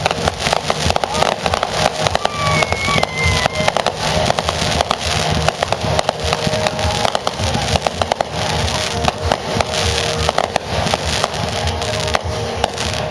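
Fireworks going off in a dense, rapid barrage of bangs and crackles, many a second, thinning slightly near the end, with music underneath.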